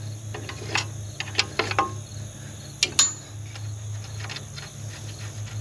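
Ratchet wrench clicking in short runs while bolts holding a tractor's hydraulic condenser are loosened, with a sharp metallic click about three seconds in. A steady low hum runs underneath.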